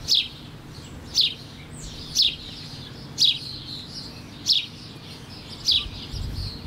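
A bird repeating a short, high, downward-slurred chirp about once a second, six times.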